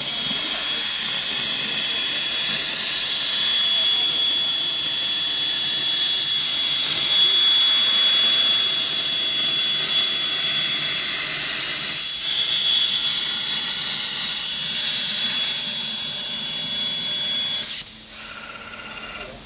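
High-definition plasma torch with a Kjellberg power source cutting 10 mm metal plate: a steady, loud hiss with a thin high whine. About 18 seconds in, the arc cuts off sharply, leaving a quieter hiss.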